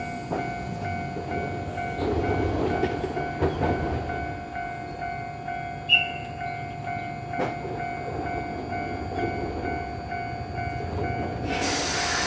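Japanese level-crossing warning alarm ringing in a steady repeating tone while a train moves over the bridge, its wheels clanking over rail joints now and then, with the sharpest clank about six seconds in. Near the end a loud hiss sets in.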